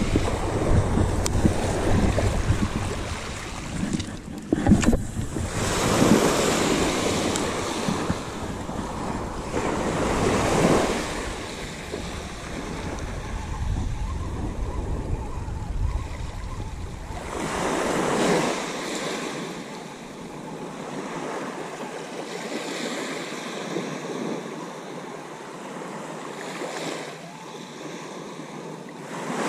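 Small waves washing up a pebbly beach at the water's edge, swelling and fading every few seconds. Wind buffets the microphone for the first two thirds, with a short knock about five seconds in.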